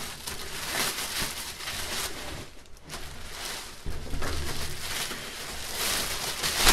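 Clear plastic bag rustling and crinkling as it is worked up and pulled off a large computer tower case.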